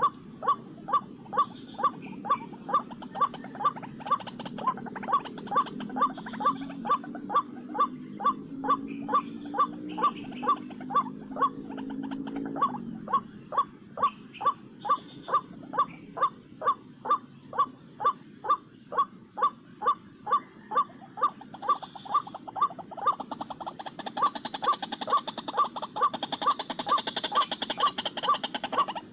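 White-breasted waterhen calls repeated in a fast, very even rhythm, about two and a half a second, as used to lure the birds. From about five to twelve seconds in, a lower drawn-out pitched sound runs underneath.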